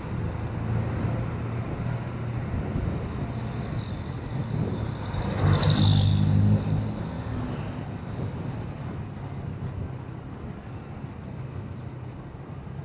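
Motorcycle engine running at road speed through traffic, with a steady low hum and some wind noise. About halfway through, it gets louder for about a second as a jeepney passes close alongside.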